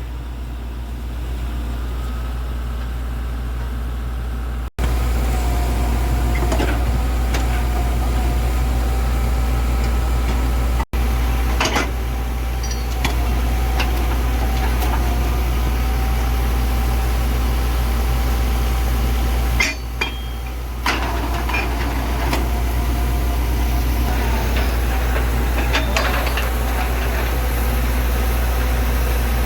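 Tractor-mounted borewell drilling rig running: a steady heavy engine drone with a held whine above it and occasional sharp knocks. The sound drops out abruptly twice, about 5 and 11 seconds in.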